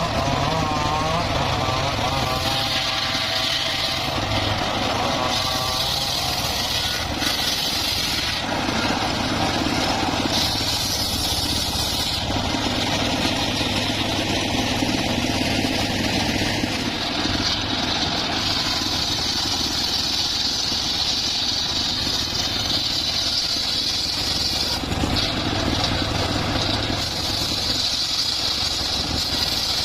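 Circular saw running steadily while cutting mahogany, over a low engine-like hum, with the high cutting noise growing and easing every few seconds as the blade works through the wood.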